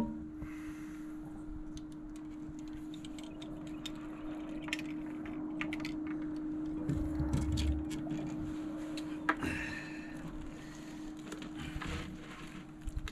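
A steady low hum under scattered light clicks and knocks, with a dull thumping about seven seconds in and a sharp click a couple of seconds later.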